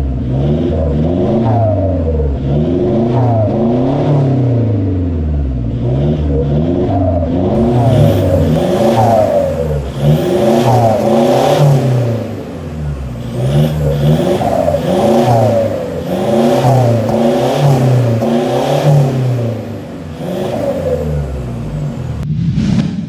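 2015 Toyota Fortuner's engine revved in repeated short blips through an aftermarket catback exhaust, the note climbing and falling every second or two.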